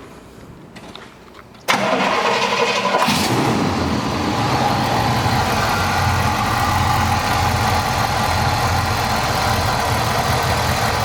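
1969 Pontiac GTO's 400 V8 with four-barrel carburettor being started: the starter cranks for about a second from nearly two seconds in, the engine catches, then settles into a steady idle.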